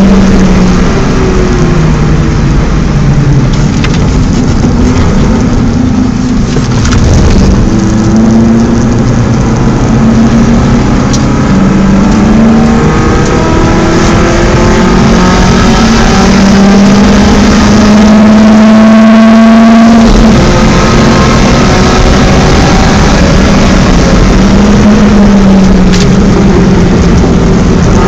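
BMW 318is four-cylinder engine driven hard on a race circuit, its pitch climbing and falling over and over as the gears go up and down. About two-thirds in it holds a high steady note, then drops off suddenly as the throttle is lifted.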